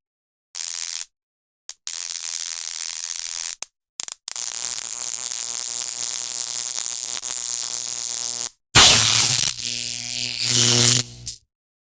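Stun gun arcing: a harsh electric crackling buzz in repeated bursts, each cut off sharply. The bursts are a second or two long, then one lasts about four seconds, and a louder, deeper-humming burst comes near the end.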